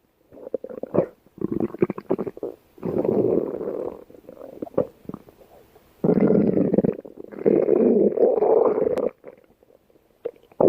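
A person's stomach growling: a series of rumbles, each lasting one to two seconds, with short quieter stretches of faint crackly gurgling between them.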